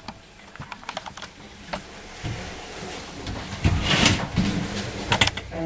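Scattered sharp clicks and knocks with rustling noise, a louder rustle or scrape about four seconds in and two sharp knocks near the end.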